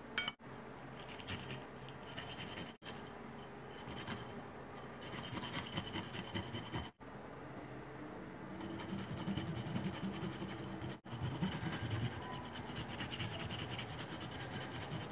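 Peeled fresh ginger being grated on a small handheld metal grater: a soft scraping rasp of repeated strokes, louder in the second half.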